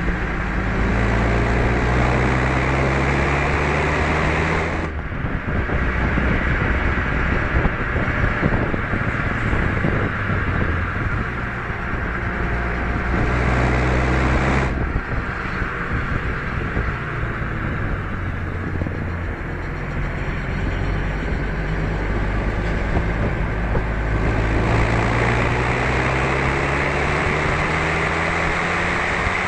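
Renault Mégane RS 250 Cup's turbocharged 2.0-litre four-cylinder under hard acceleration on track, its note climbing through the revs. The note drops off abruptly about five seconds in and again near fifteen seconds as the throttle is lifted, with rougher road and wind noise between, then climbs again over the last several seconds.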